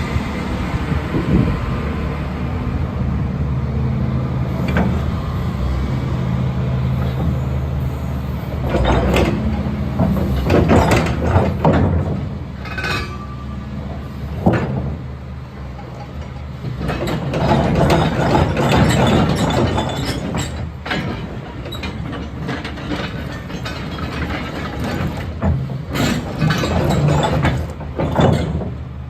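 Caterpillar 325C excavator's diesel engine running steadily, with several bouts of louder clanking and scraping from the machine working, about a third of the way in, around the middle and near the end.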